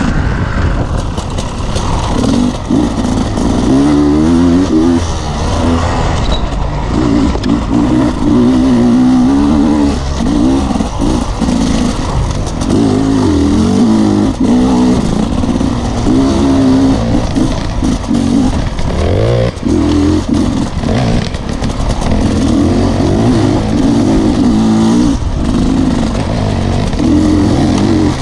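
Dirt bike engine heard from on board, revving up and falling back again and again as the rider opens and closes the throttle along a twisting trail.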